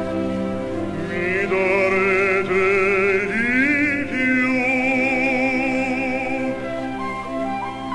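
A male bass-baritone voice sings an Italian art song with wide operatic vibrato over a chamber string orchestra. The voice comes in about a second in, slides up in pitch midway, and lets go near the end, where the strings carry on alone. The sound is dulled and hissy, as from an old cassette tape recording.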